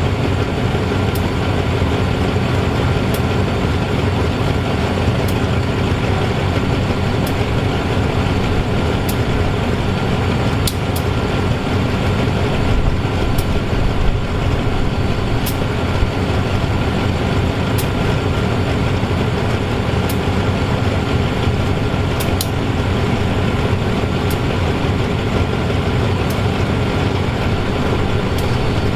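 GE diesel-electric locomotive No. 4542 idling at a standstill: a steady, unchanging engine rumble, with occasional faint clicks.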